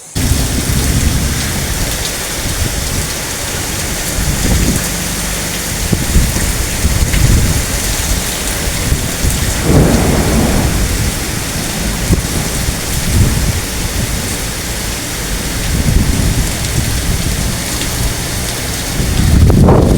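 Heavy rain pouring steadily in a thunderstorm, with rumbles of thunder swelling about halfway through and again near the end.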